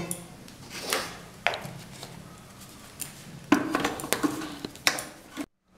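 Biscuits snapped by hand and dropped into a steel mixer-grinder jar, then the jar handled over the grinder base: a scatter of separate cracks and metallic clinks.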